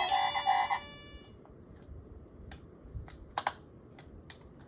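A few musical chime notes fade out about a second in. After that come a handful of separate sharp clicks, loudest in a close pair about three and a half seconds in.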